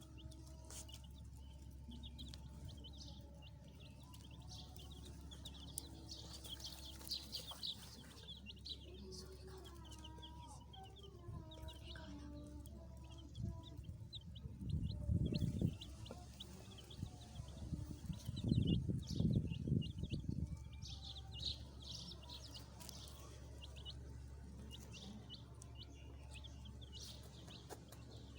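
Baby chicks peeping, a steady stream of short high chirps. Twice in the middle a loud low rumble cuts in, each lasting about two seconds.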